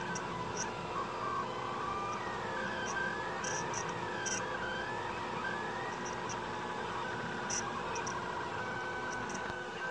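Delta 3D printer running a print: its stepper motors whine in tones that glide up and down as the effector changes speed and direction, over a steady hum, with a few short ticks.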